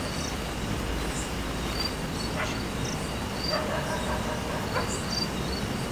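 Night insects chirping in short, high pulses about once a second over a steady background hiss.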